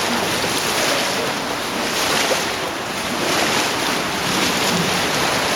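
Cave stream in near-flood flow, a steady loud rush of water.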